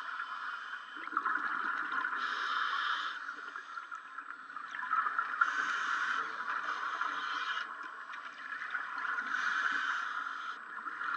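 Scuba breathing through a regulator underwater, heard through the camera housing: hissing breaths and bubbling that swell and fade every few seconds over a steady water rush.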